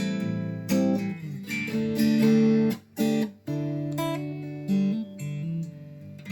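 Fender '72 reissue electric guitar fitted with US vintage pickups, played clean with chords and single notes. Twice near the middle it stops short for a moment before the next chord.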